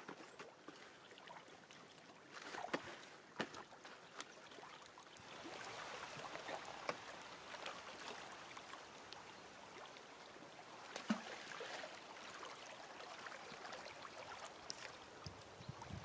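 Small waves lapping at a lakeshore, a steady wash with light splashes, with a few sharp clicks about three to four seconds in.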